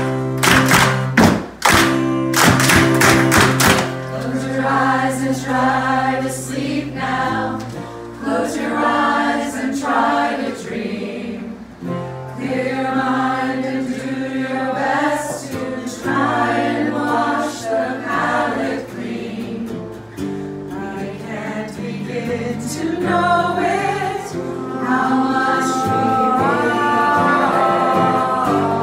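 Amateur choir of mixed men's and women's voices singing a pop song together, accompanied by strummed acoustic guitar. Loud guitar strums stand out in the first few seconds before the voices come in.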